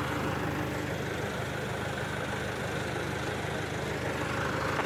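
Flatbed tow truck's engine idling steadily, a low even drone.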